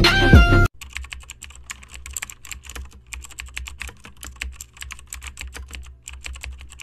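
Computer keyboard typing: a run of quick, irregular key clicks with a few short pauses. It starts just under a second in, where loud music cuts off abruptly.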